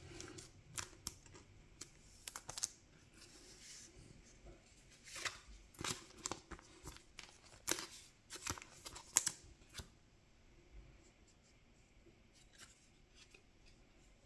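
Thin plastic card sleeve crinkling and clicking as a trading card is handled and slid into it, in short faint scattered rustles that thin out after about ten seconds.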